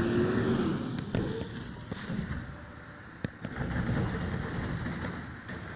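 Garbage truck's engine running close by, with a short hiss about a second in and a sharp knock about three seconds in.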